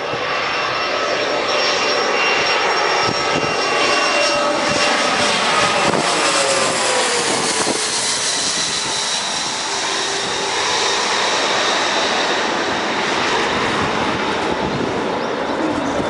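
A CRJ regional jet's twin rear-mounted turbofans passing low overhead on final approach: a steady jet rush with a high fan whine, and an engine tone that slides down in pitch about midway as the aircraft passes.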